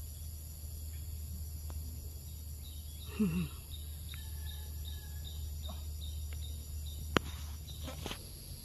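Outdoor rural ambience: a steady low hum with a faint high chirp repeating about three times a second, likely an insect or bird. A short low call falling in pitch comes about three seconds in, and a single sharp click a little after seven seconds.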